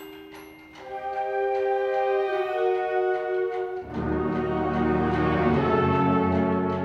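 School concert band playing held chords: a few soft sustained notes, then the band comes in louder about a second in, and low notes join about four seconds in for a full, loud chord.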